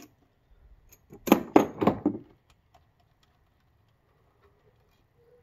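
A quick run of sharp metal clinks and rattles from a ratchet and 10 mm socket on a bolt at the intake manifold, lasting about a second, with faint clicks around it.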